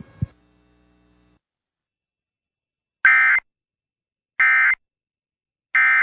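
Emergency Alert System end-of-message (EOM) code: three short, identical buzzy data bursts about 1.4 seconds apart, starting about halfway through. They are the digital signal that closes an EAS broadcast, here the end of a test.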